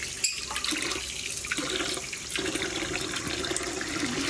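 A thin stream of running water pours into a bowl of water and splashes as a gutted tilapia is rinsed under it by hand, with one sharp knock about a quarter second in.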